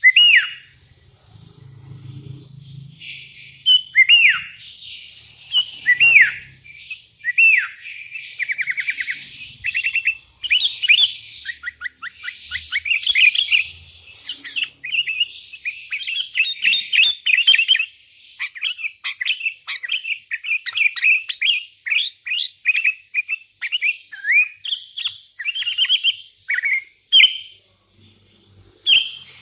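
Sooty-headed bulbul (kutilang) singing loudly and almost without pause: bubbly whistled phrases made of falling slurred notes and quick runs of short notes. It is a rival-calling song, the kind used to draw other bulbuls to answer.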